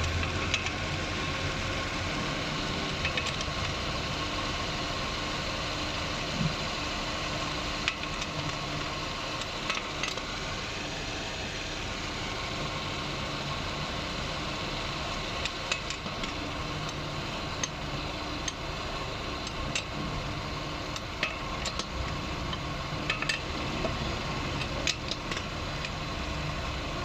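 2003 Ford Escape engine idling with its alternator spinning: a steady running sound with a thin, even whine over it and scattered light ticks. The alternator is running on a newly replaced bearing, which the owner finds sounds different and good.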